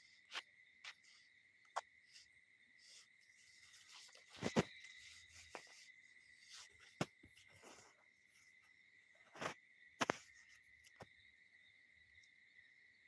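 Phone being handled and shifted against cloth: scattered knocks and short rustles, the loudest about four and a half and ten seconds in, over a faint steady high-pitched tone.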